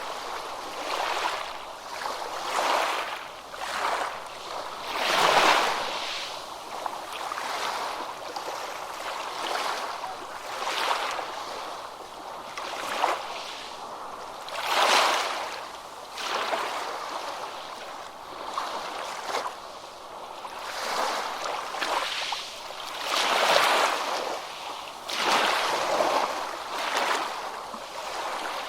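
Ocean waves breaking on a beach, a steady wash of surf that swells and falls every second or two, with a few larger breakers surging louder.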